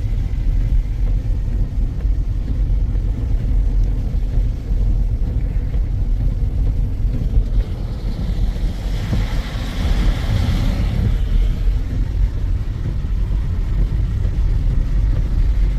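Car driving with a steady low rumble of engine and road noise. A swell of hissing noise rises and fades from about nine to eleven seconds in.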